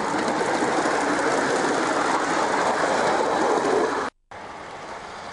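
Miniature live-steam locomotive running past close by with a rider aboard, a steady noisy rattle. The sound cuts out briefly about four seconds in and comes back quieter.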